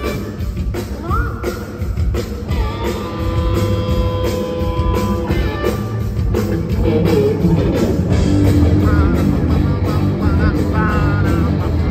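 Live rock band playing loudly through a concert PA: distorted electric guitars, bass and drums at a steady driving beat, with a woman singing.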